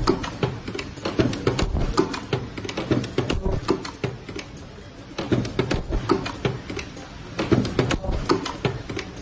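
Semi-automatic two-spot mask ear-loop welding machine clicking and clattering as its ear-loop feed and welding head cycle on each mask. The clicks come thick and irregular, ease off about four seconds in, then return in spells.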